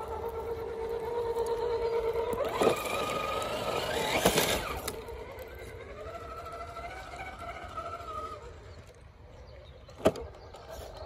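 Vanquish VS4-10 Ultra RC rock crawler's electric motor and geared drivetrain whining steadily as it crawls, the whine falling away and shifting in pitch midway. Tyres scrape and click on stone around three to five seconds in, and a single sharp knock comes about ten seconds in as the front wheels drop off a rock ledge.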